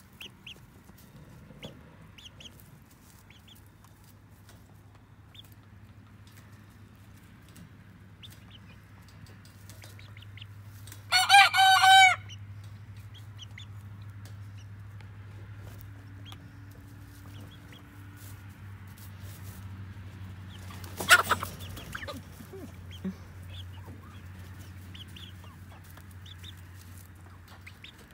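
Chickens clucking softly, with a rooster crowing loudly once about eleven seconds in and a short, loud squawk about ten seconds later. A steady low hum runs underneath.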